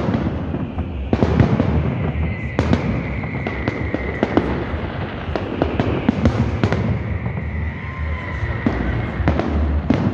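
Aerial fireworks salute: repeated sharp bangs of shells bursting overhead, one after another, over a steady background din.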